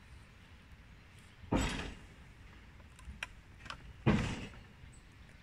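Two heavy clunks about two and a half seconds apart, with a few lighter clicks between them, from the steel slipway carriage as it carries the boat along its rails.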